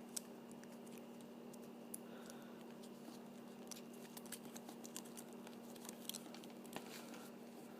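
Faint light clicks and rustles of the thin wire on an LED turn-signal strip being unwound and handled, scattered irregularly, over a steady low hum.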